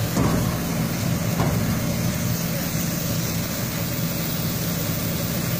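Fire engine running steadily, a low even drone as it pumps water to the hoses, with a steady hiss of water spray from a hose nozzle driving smoke out of a compartment (hydraulic ventilation).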